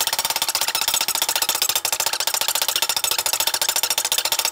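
An espresso portafilter knocked over and over against the rubber bar of a stainless steel knock box: a fast, even train of knocks, many per second.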